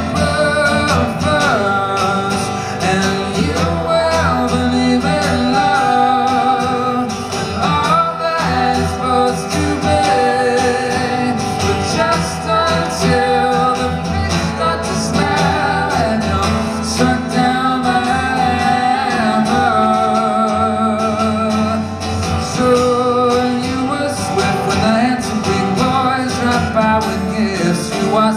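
Male voice singing with vibrato to his own acoustic guitar accompaniment.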